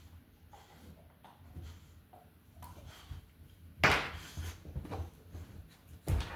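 Cane Corso puppy playing, with scuffling and light knocks and two short, loud noisy bursts, one about four seconds in and one near the end.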